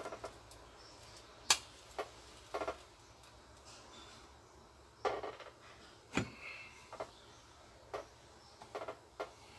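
Faint handling noises: about nine light clicks and taps, some with a short rustle, as a paraffin-and-cotton match is unwrapped, struck and held over a small metal tin.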